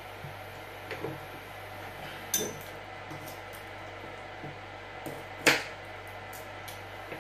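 Kitchen prep handling sounds: a few scattered clicks and clinks of a knife, glass bowl and plastic cutting board. The loudest is a sharp, ringing clink about five and a half seconds in, with a smaller one a little over two seconds in.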